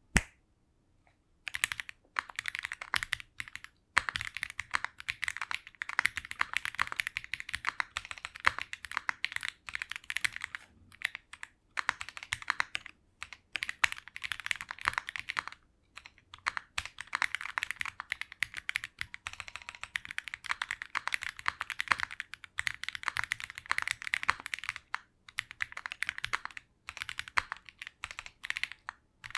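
Typing on an Owlab Mr. Suit TKL mechanical keyboard with lubed Fantasy Virus tactile switches, an FR4 plate and PBT Cherry-profile keycaps: a fast, continuous stream of keystrokes with a few short pauses. It is preceded by a single sharp click right at the start.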